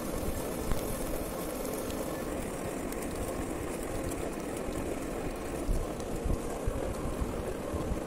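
Heavy-duty metal lathe turning a large gear blank in a four-jaw chuck while the cutting tool faces it: steady machine noise of the spinning chuck and the cut, with a few irregular low knocks, most of them about three-quarters of the way through.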